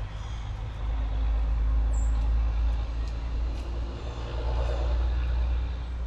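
A low rumble of a passing motor vehicle, swelling about a second in and fading near the end, with a few short high bird chirps over it.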